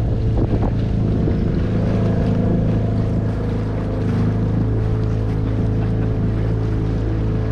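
Outboard motor running at a steady speed, pushing a small wooden boat across a lake, with water washing along the hull.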